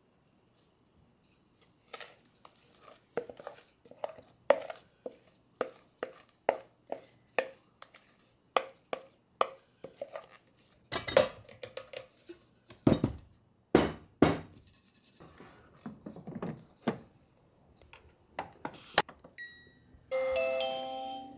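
A spatula knocks and scrapes thick batter off a mixing bowl into a rice-cooker pot, about two knocks a second, with a few louder knocks around the middle. Near the end a Cuckoo electric rice cooker gives a short beep and then plays its electronic chime as its cooking programme is started.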